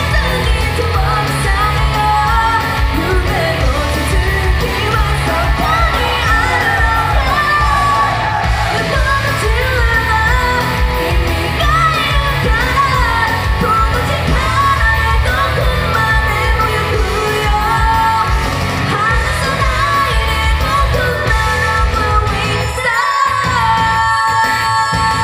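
Female vocalist singing a pop-rock song live into a handheld microphone over full accompaniment, amplified in a hall. Near the end the bass drops out for a moment and she holds long steady notes.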